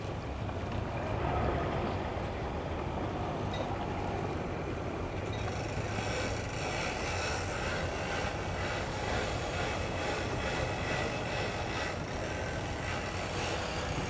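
Boat engines running steadily at low speed, a low rumble. A fainter high-pitched whine joins from about five seconds in.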